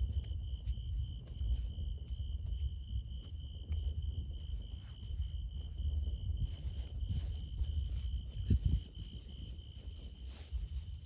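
Insects chirping in a steady, fast pulsing trill, over a low, uneven rumble. Scattered soft clicks and knocks, with a louder thump about eight and a half seconds in.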